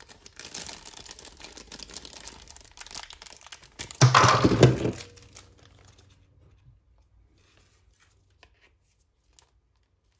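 A clear plastic bag crinkling as a small PVC figure is worked out of it. About four seconds in comes a loud, sudden burst of noise lasting about a second, then only a few faint small clicks.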